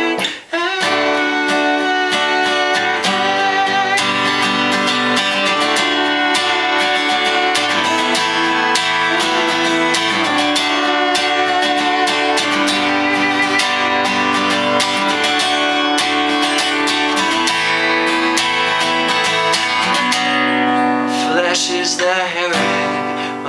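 Acoustic guitar strummed steadily through an instrumental passage of a song, with a brief break about half a second in.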